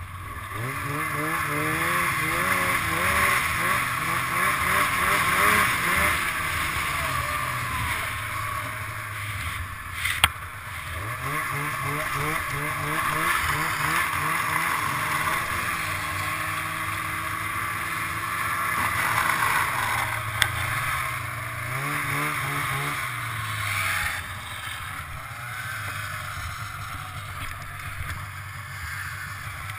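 Polaris Indy 500 snowmobile's two-stroke twin engine accelerating again and again, its pitch climbing through several rises and holding steady between them, over a steady rush of wind and track noise. Two sharp knocks are heard, about ten and twenty seconds in.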